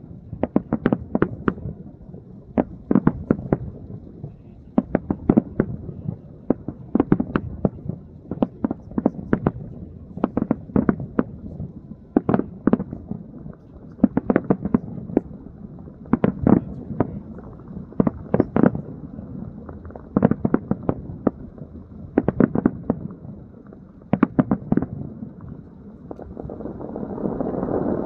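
A long, irregular series of sharp explosive bangs, sometimes several a second, with a rising rush of noise near the end.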